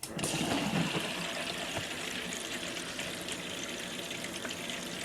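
Bilge pump switching on and circulating ice water from a cooler through a heater core, with water splashing and trickling steadily. It starts suddenly and then runs evenly.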